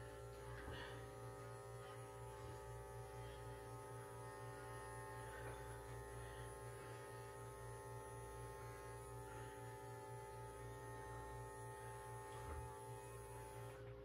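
Faint steady electrical hum with several held tones.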